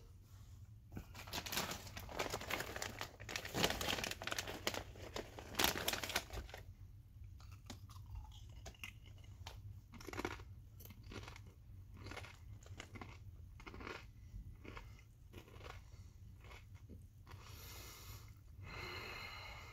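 Crinkling of a Cape Cod potato chip bag and chips being bitten for the first several seconds, then a steady run of crunching chews of potato chips at about two a second, with another brief rustle of the bag near the end.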